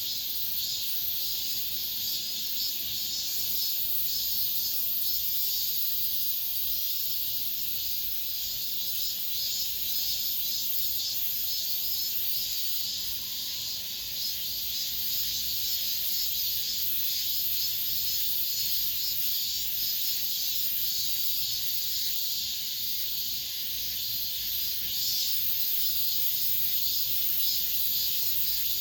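Cicadas singing in chorus: a steady, high-pitched buzzing that does not let up.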